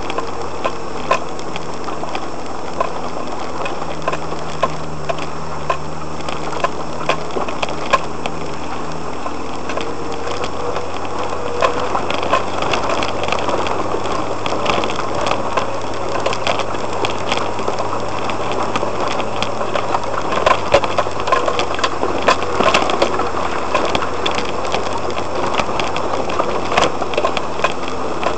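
An off-road vehicle's engine running steadily at low speed up a rough, rocky dirt track, heard from inside the cabin, with frequent small clicks and knocks from stones under the tyres and the body jolting.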